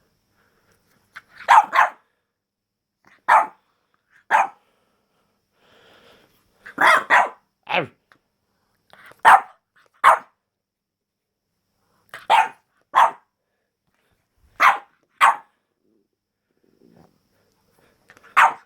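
French bulldog puppy barking in short, sharp yaps, often two in quick succession, about a dozen times with pauses between: playful puppy barking.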